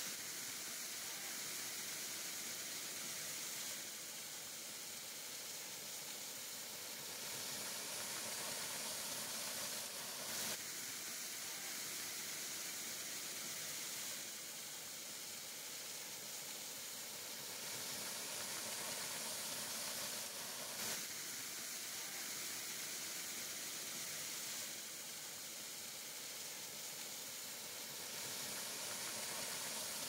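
Waterfall cascading over rock into a pool, a steady rush of falling and splashing water heard close up, with two brief louder moments about ten and twenty-one seconds in.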